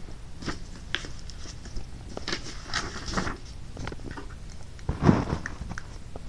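Handling noise: knitted fabric rubbing and scraping close against the microphone, with scattered small clicks and one louder thump about five seconds in.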